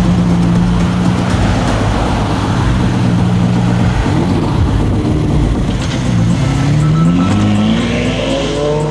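Lamborghini Diablo's V12 engine running at low, steady revs as the car pulls out, then accelerating with the revs rising over the last two seconds or so.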